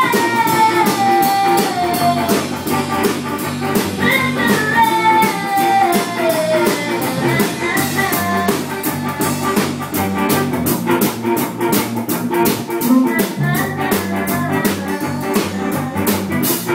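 Small live band rehearsing: guitar, bass and drum kit playing a blues-jazz groove over a steady cymbal beat. A melody line slides downward twice, once at the start and again about four seconds in.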